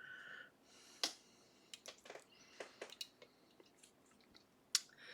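Faint, irregular metallic clicks and ticks of a lock pick and tension wrench working the gin spool pins inside a Ruko/Assa 500 pin-tumbler cylinder, with one sharper click about a second in.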